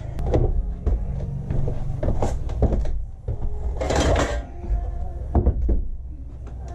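A plywood panel and a length of timber knocking and scraping against the van's wall and floor as the timber is wedged in to press the panel onto the glue, with a longer, louder scrape about four seconds in.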